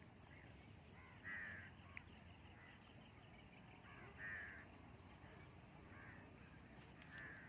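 A bird calling three times, short harsh calls a few seconds apart, with faint high chirps between them over quiet outdoor background.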